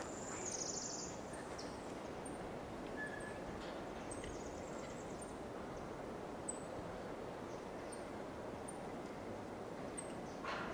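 Outdoor ambience: a steady hiss of background noise with small birds calling, short very high chirps repeating about once a second and a brief high trill near the start.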